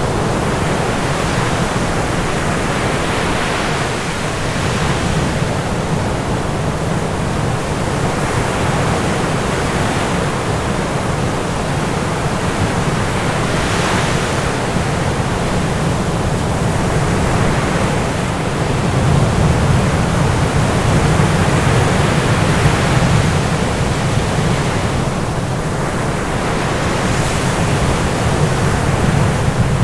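Continuous rushing of ocean surf, swelling in brief washes every few seconds over a steady deep rumble.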